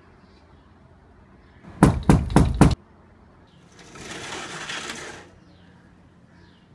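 A quick run of four or five sharp knocks on a door, then about a second of an aluminium-framed sliding door rolling open along its track.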